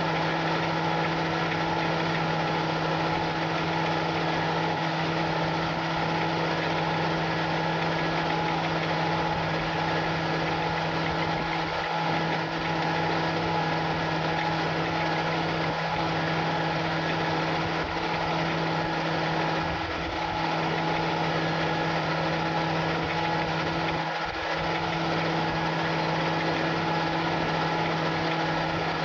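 John Deere 8260R tractor's six-cylinder diesel running at a constant, unchanging speed while pulling a disc harrow through the field.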